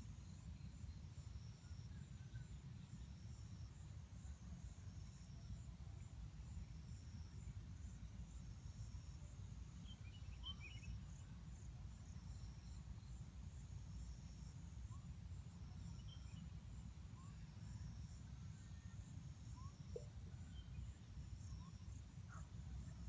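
Faint rural ambience: insects trilling high in a steady pulsing pattern, with a few faint, short bird chirps over a low rumble.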